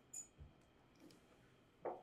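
Near silence: faint room tone broken by a few brief clicks and a soft thump, with the loudest short knock near the end.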